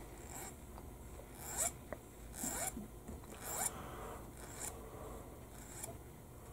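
Short, scratchy scrapes and clicks of a small hobby tool cutting and working a tiny plastic model part on a cutting mat, about six of them at irregular intervals.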